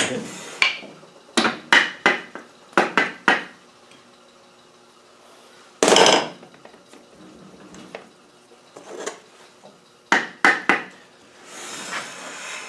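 Sharp metal-on-metal knocks and clinks, several in quick succession in the first few seconds and again near the end, with a scrape in the middle, as the intermediate gear pin is worked into a Land Rover LT230 transfer case. The pin is catching on the case's flanged bolts.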